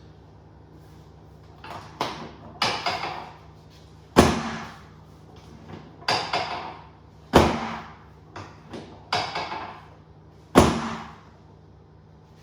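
Sharp knocks and thumps from a chiropractic adjustment on a treatment table: about nine in ten seconds, starting about two seconds in. Three of them are louder, with a deep thud.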